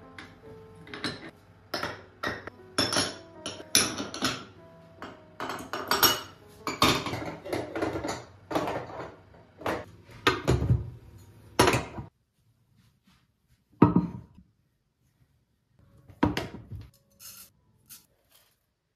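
Metal burner caps and pan-support grates of a gas hob being set back onto the glass cooktop: a quick run of clinks and clatters for about twelve seconds. After that come two single knocks a couple of seconds apart.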